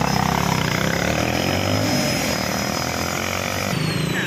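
Kawasaki Rouser 180 motorcycle's single-cylinder engine revving as it pulls away on a test of its freshly repaired clutch, the engine note rising and falling. The sound changes abruptly near the end.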